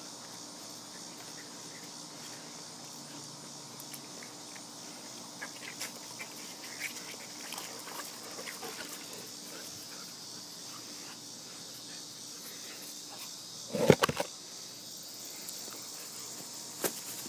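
German shepherd sloshing and stepping about in a shallow plastic kiddie pool: faint, irregular splashes and drips, heard over a steady high insect chorus. A single brief loud bump comes about two-thirds of the way through.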